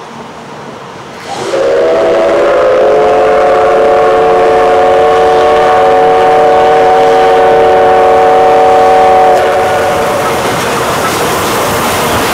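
Whistle of the C11 207 steam locomotive blowing one long blast of about eight seconds, several steady tones sounding together, starting about a second in and cutting off sharply. The locomotive's running noise carries on after the whistle stops as the train comes close.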